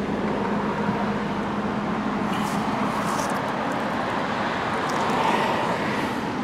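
Steady motor-vehicle noise with a constant low hum, swelling slightly about five seconds in.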